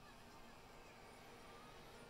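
Near silence: room tone with a faint hiss and a few faint, short wavering tones.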